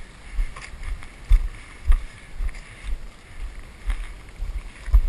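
Wind rumbling on a head-mounted action camera's microphone, with low thuds about twice a second and faint crunches from footsteps walking on dry dirt.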